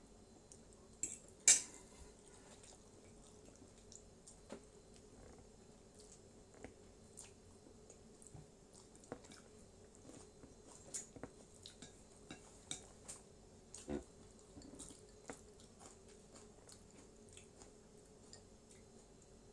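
Cutlery clinking and tapping against plates during a meal: scattered light clicks from a fork and chopsticks, the loudest a sharp clink about a second and a half in, over a faint steady hum.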